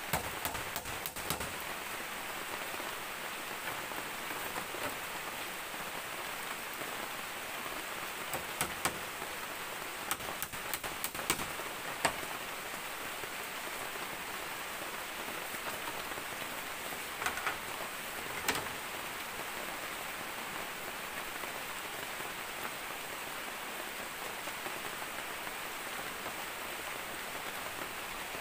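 Steady hiss, with scattered sharp clicks and knocks of split bamboo slats being handled and laid as a floor, a few near the start, a cluster partway through and two more later.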